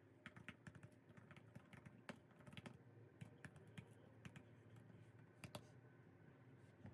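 Faint, irregular light clicks and taps, two or three a second, over a low steady hum.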